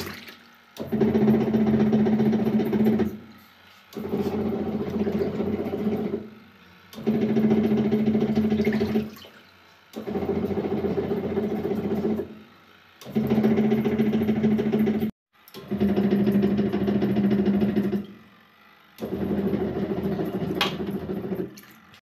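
Twin-tub semi-automatic washing machine's wash motor and pulsator churning a blanket in soapy water. It runs with a steady hum and sloshing in stretches of about two seconds, stopping briefly about every three seconds as the wash action reverses direction.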